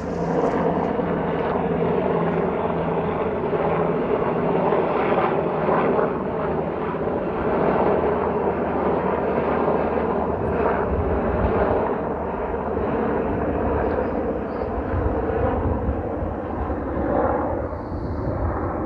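Two military helicopters flying overhead: a steady rotor and engine drone with a low rumble underneath.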